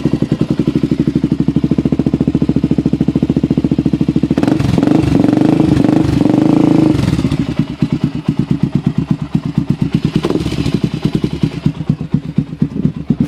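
Honda 400EX ATV's single-cylinder four-stroke engine, breathing through a DG slip-on exhaust, idling with an even pulsing beat. It is revved for about two and a half seconds near the middle, settles back to idle, and gets one short throttle blip a few seconds later.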